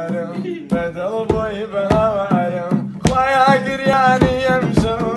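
Kurdish song: a singer's wavering, ornamented vocal line over a steady drum beat.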